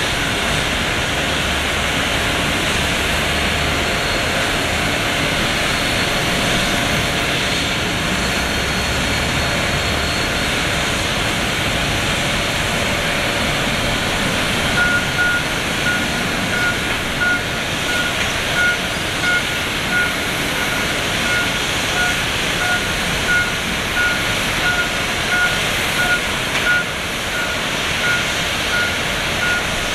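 Steady distant jet engine noise of a taxiing Boeing 737-400 with airport ambience. From about halfway through, an airport ground vehicle's reversing alarm beeps steadily, a little under two beeps a second.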